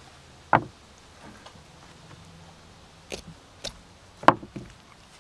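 A knife gutting a trout on a wooden slab: a few sharp clicks and knocks of the blade and the fish against the wood, the loudest a little after four seconds in.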